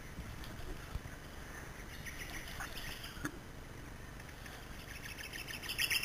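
Birds chirping in short calls over a low background hiss, with a sharp knock about three seconds in and a brief burst of rapid clicking at the end.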